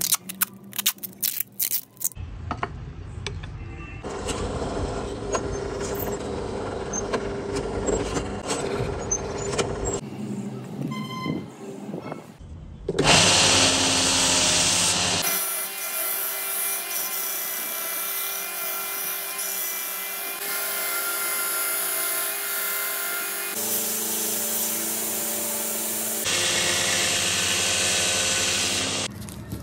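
A series of short takes of power-tool work on a wooden knife handle: sharp clicks and knocks at first, then stretches of machines cutting wood. Near the end a drill runs steadily, boring pin holes through a wooden handle scale.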